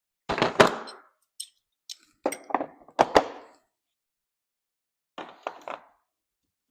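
Clattering knocks of loose hardware and tools being handled and put away, in three short bursts about a second, two and a half seconds and five seconds in.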